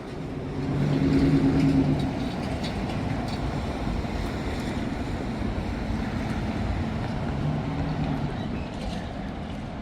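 Street traffic: a steady roar of passing vehicles, with a low engine hum that swells about a second in and comes back briefly near the end.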